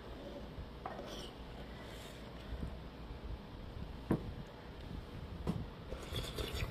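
Utensils clicking and tapping against dishes while eating: a few scattered light clinks, the sharpest about four seconds in and a small cluster near the end.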